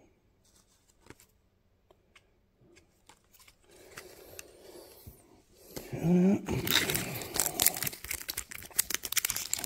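Trading-card pack wrapper being handled and torn open by hand. Faint handling noises come first, then a dense crackling crinkle of the wrapper tearing through the last third.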